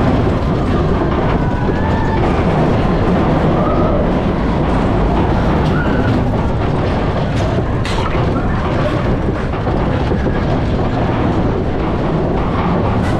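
A mine-train roller coaster running along its track at speed, heard from the lead car: a loud, steady rumble and rattle of wheels on the rails, with a sharp click about eight seconds in.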